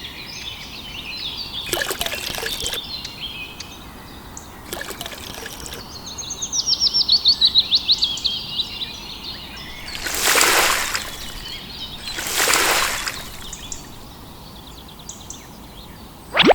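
Birds chirping, with a rapid, falling trill of repeated notes about six seconds in. Two short rushing bursts of noise come around ten and twelve seconds in.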